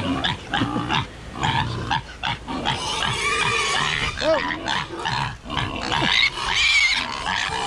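Domestic pigs and piglets grunting and calling, startled by a person close among them, with short arching grunts and higher, wavering squeals in the middle and again near the end.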